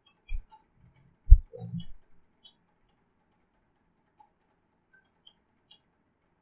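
Desk and mouse handling noise: a few short, low knocks and clicks in the first two seconds, the strongest about 1.3 s in, then quiet with a few faint ticks and one small click near the end.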